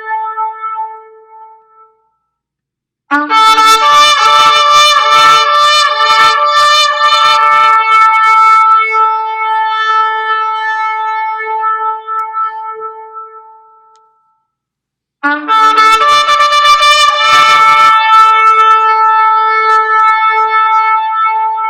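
Horn blasts from a played-back recording of shofars. A held note fades out, then after a short silence come two long, loud blasts, several horns sounding different pitches together with a wavering tone. The first lasts about eleven seconds; the second starts about fifteen seconds in and is still sounding at the end.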